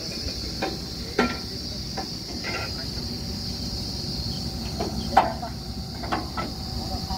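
Steady high insect chirring over the low hum of a borewell drilling rig's engine running. A handful of sharp metallic knocks rise above it, the loudest about five seconds in.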